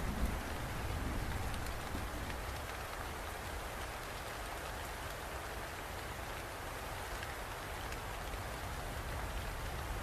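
Steady rain falling, an even hiss of drops hitting surfaces.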